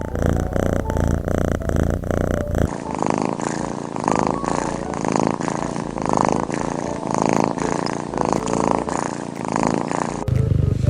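Domestic cat purring close to the microphone, in regular pulses about twice a second. Near the end a louder low rumble takes over.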